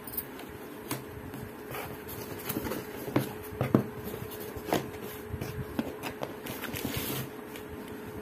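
Cardboard shipping box being opened by hand: flaps pulled open and the inner carton handled, with scattered knocks and rustling, scraping cardboard.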